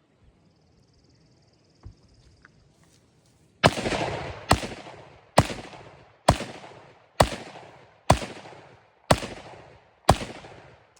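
A 7.62 gun fired as single shots, eight in a row about a second apart, starting a few seconds in. Each shot is followed by a ringing echo.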